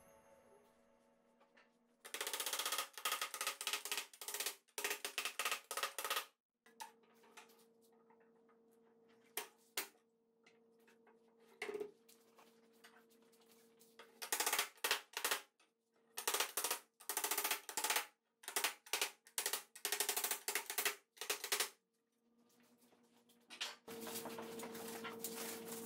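Wooden lattice slats clattering and knocking against each other and the workbench as they are handled and shifted, in several bursts of rapid clicks with short quiet gaps.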